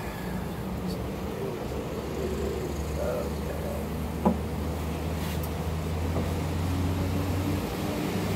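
A steady low engine-like hum that grows somewhat louder from about halfway, with a single sharp knock about four seconds in as the acoustic guitar is picked up.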